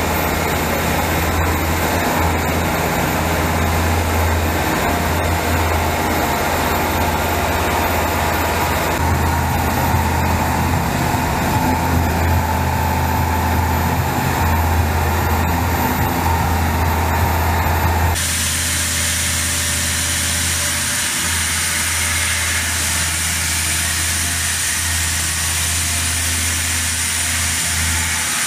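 Large three-axis CNC machining center milling a steel mold: a steady machine hum with a thin whine and the hiss of cutting. The sound changes abruptly about nine seconds in and again about eighteen seconds in.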